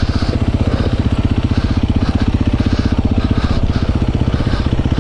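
Dirt bike engine running steadily under way on a trail, a fast, even chug of firing pulses with no big revs or shifts.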